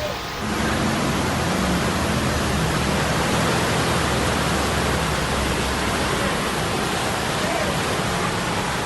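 Loud, steady rushing noise of water, as from surging floodwater or a heavy downpour. It starts abruptly about half a second in and cuts off suddenly at the end.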